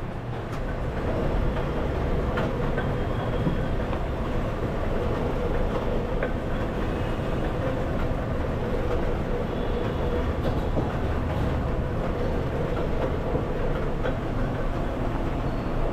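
Dough-sheeting roller machine running with a steady mechanical rumble and a constant hum.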